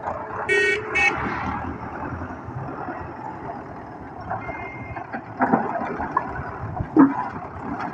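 Russian-built tractor's diesel engine running under load while its front-loader bucket tips broken bricks into a trolley, the bricks landing with a clatter about five and a half and seven seconds in, the second the loudest. Two short horn-like beeps sound about half a second and one second in.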